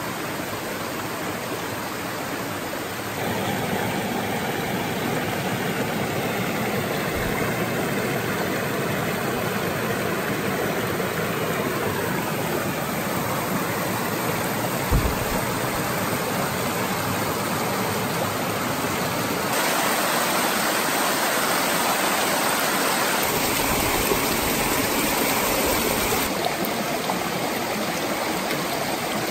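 Small forest stream rushing steadily over rocks and low cascades. The rush steps louder about three seconds in and louder again for several seconds in the last third, and a brief low thump sounds about halfway.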